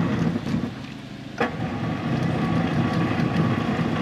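An engine running unevenly at low speed, with one sharp click about a second and a half in.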